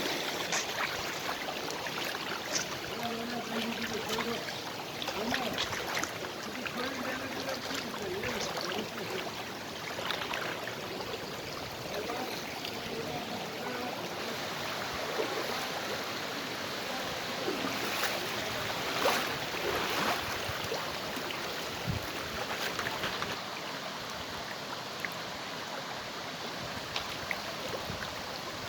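Creek water rushing steadily along a stony bed, with faint voices in the first few seconds and a few sharp knocks around the middle.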